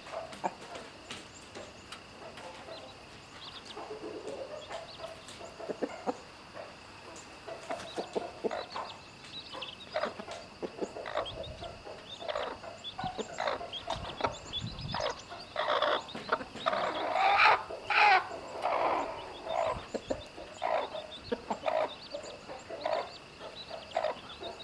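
Mother hen clucking to her chicks amid many short chicken calls, with a louder, busier burst of calls roughly two-thirds of the way in. A steady high-pitched tone runs underneath.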